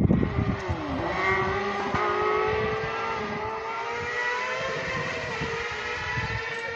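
A carcross buggy's motorcycle engine drops in pitch as it slows for the corner about half a second in, then accelerates away with its note climbing and slowly fading. There are low thumps at the very start.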